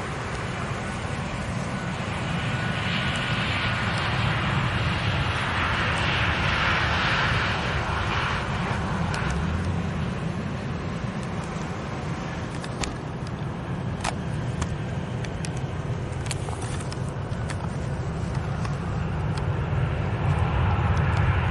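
Delta jet airliner's engines running as it passes, a steady deep rumble with a hiss that swells and fades in the first half. A few sharp clicks come about two thirds of the way through.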